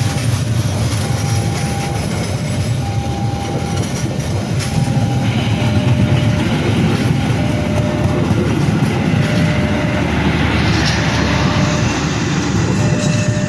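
KA Kertajaya passenger train's carriages rolling past, a steady rumble of steel wheels on the rails with brief recurring squealing tones.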